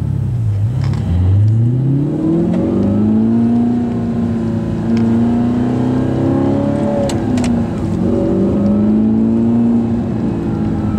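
Audi R8 with an Armytrix exhaust accelerating, heard from inside the cabin: the engine note climbs steeply, holds high for several seconds, dips briefly and climbs again, then falls away near the end. Two sharp cracks come a little past the middle.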